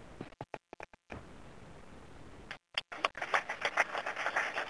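Faint room tone, then a small audience starts clapping about three seconds in, a quick irregular patter of hand claps.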